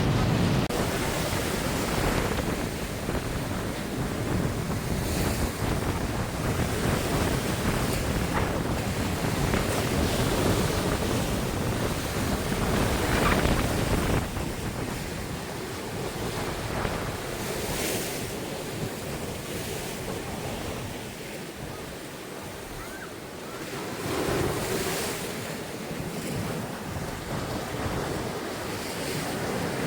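Surf washing onto a sandy beach, with wind buffeting the microphone. The wash swells and ebbs, easing off about two-thirds of the way through before another wave comes in.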